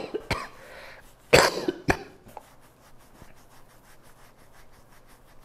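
A person coughing in several short bursts, the strongest about a second and a half in, the cough set off by pressure on a sensitive spot of the windpipe. After that, faint rhythmic rubbing of hands massaging the throat.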